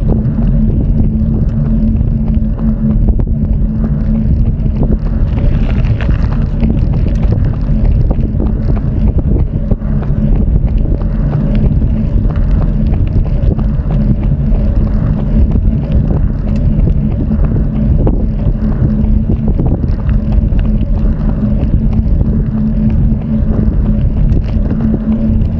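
Wind buffeting the microphone of a camera carried on a fast run: a loud, steady rumble with a steady low hum in it.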